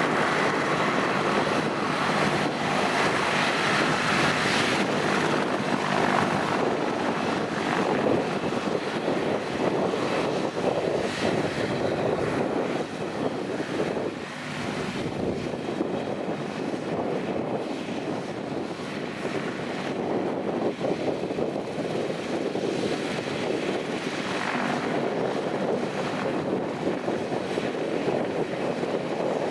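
BK 117 twin-turbine helicopter running near at hand, a steady turbine and rotor noise that eases a little about halfway through.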